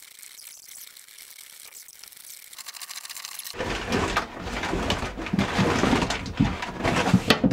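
A paper sack rustling and crackling as anchor rope is dragged out of it and pushed through a hatch into a chain locker, with bumps and knocks. It is faint at first and turns loud about halfway through.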